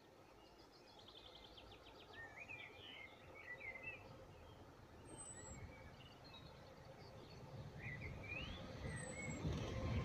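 Small songbirds singing: a quick trill, then short warbled phrases, with more phrases near the end. Under them a low rumble grows louder toward the end.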